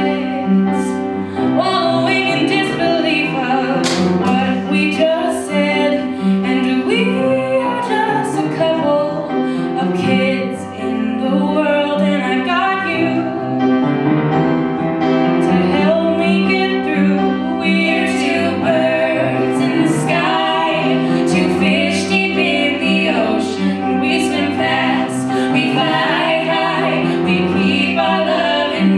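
Live duet of an original folk-style song: two singers, at least one a woman, singing together over instrumental accompaniment.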